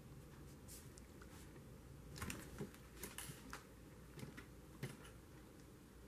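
Sheets of paper being handled and shifted on a tabletop: a few soft rustles and light taps between about two and five seconds in, over quiet room hum.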